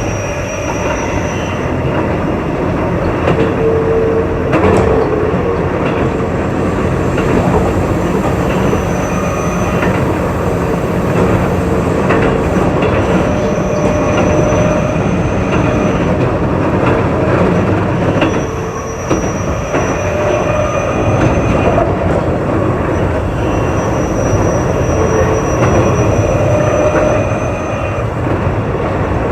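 Keio 8000 series electric commuter train running along the line: a continuous rumble of wheels on rail with clickety-clack of rail joints, and steady whining tones that come and go over it.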